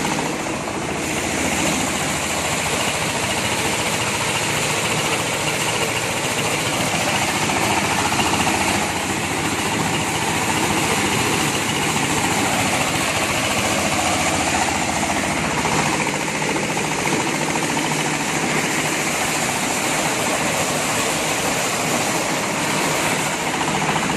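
Engine-driven corn sheller for unhusked corn running on test, a loud continuous mechanical noise with a steady low engine hum underneath.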